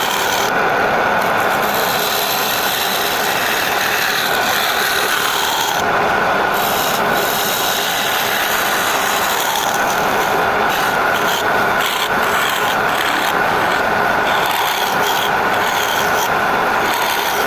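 A tool abrading wood without pause, a steady scraping noise throughout.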